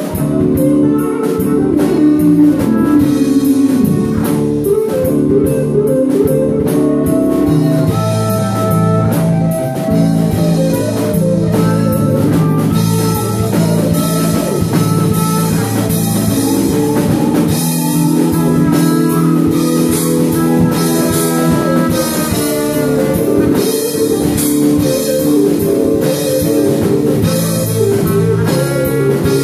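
Live band playing: electric guitars over a drum kit, a steady loud full-band passage.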